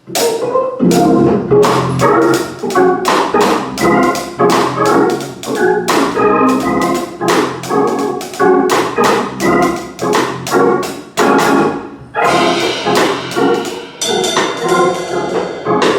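Organ music, with chords struck in a steady, quick rhythm.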